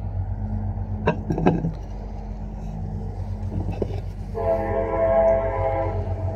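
Steady low rumble, with two sharp knocks a little after a second in, then a loud horn blast lasting under two seconds starting about four seconds in.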